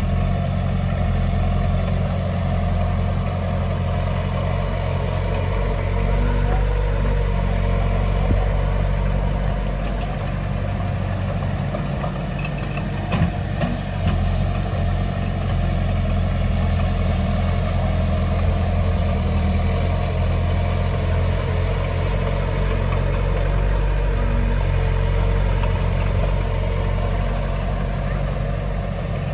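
Heavy diesel engine of earthmoving machinery running steadily, a low even drone, with a brief knock about halfway through.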